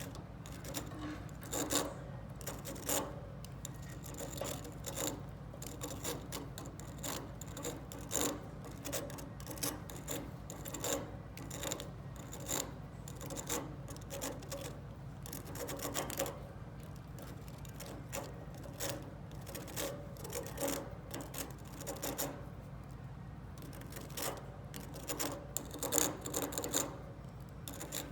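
Budgies' beaks scraping and gnawing at a cuttlebone: irregular short rasping strokes, several a second in flurries, over a steady low hum.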